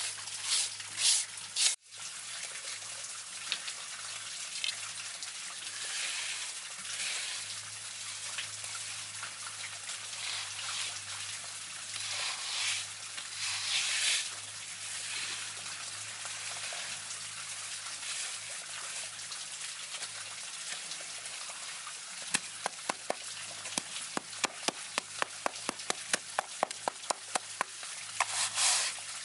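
Hand trowel scraping and smoothing wet concrete, a gritty wet rasping in repeated strokes. Over the last several seconds it turns to quick, sharp taps, about four a second, as the trowel pats the concrete surface.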